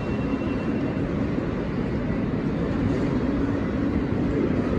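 Jet airliner taking off, a steady low rumble from its engines at takeoff thrust that swells slightly near the end.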